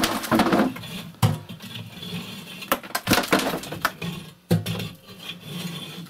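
Soot and broken brick being raked out of a brick stove's flue with a poker and a gloved hand: rough scraping with several sharp knocks and clinks of metal against brick.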